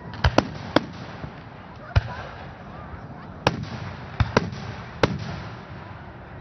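Aerial firework shells bursting: about eight sharp bangs at irregular intervals, several in a quick cluster in the first second and another pair about four seconds in.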